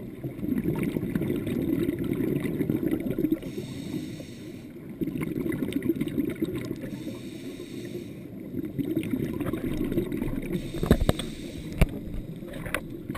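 Scuba diver's exhaled regulator bubbles, muffled through a GoPro dive housing: about three long bouts of low bubbling rumble, each a few seconds long, with short quieter breaks between breaths. A few sharp clicks come near the end.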